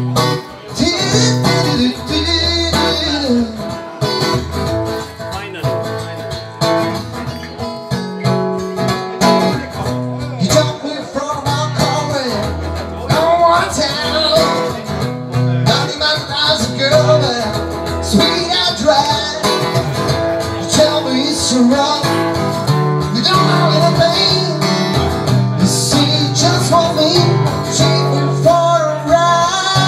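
Acoustic guitar music with a voice singing over it.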